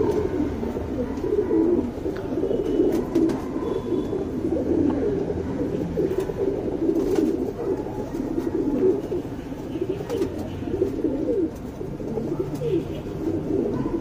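Many domestic pigeons cooing at once in a steady, overlapping chorus.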